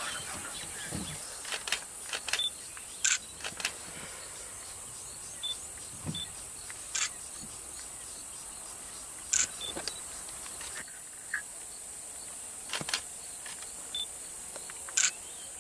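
Steady outdoor background hiss with several short, sharp clicks scattered through it and a few faint, short high peeps.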